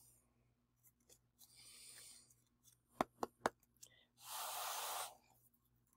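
Quiet handling of a deck of oracle cards: a few soft clicks a little past the middle, then one breath lasting just under a second.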